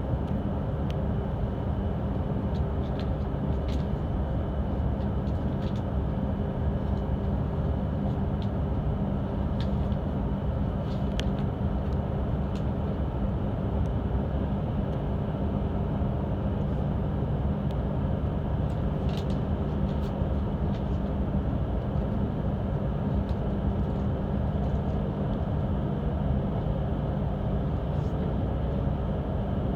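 Steady rumble and hum inside a Hokuriku Shinkansen car, with a few faint scattered clicks.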